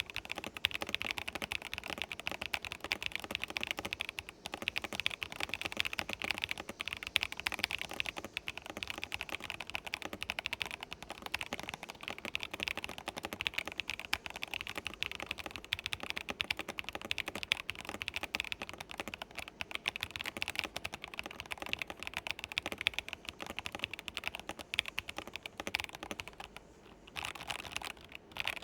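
Fast typing on a RisoPhy PC432 budget mechanical keyboard with light linear switches: a rapid, continuous run of keystrokes, with a short lull near the end.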